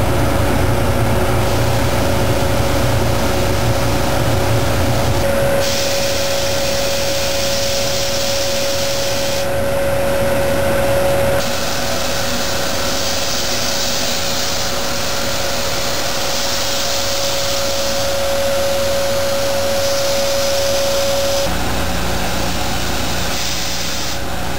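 Abplanalp through-feed surface grinding system for laminated steel E-cores running: a steady mechanical whir and hiss over a constant hum, dry grinding and brush cleaning stations at work. The noise changes character abruptly a few times, about five, eleven and twenty-one seconds in.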